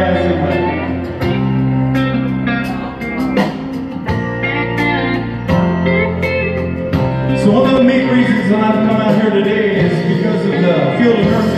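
Country song music with guitar and bass playing steadily, an instrumental stretch without a lead vocal.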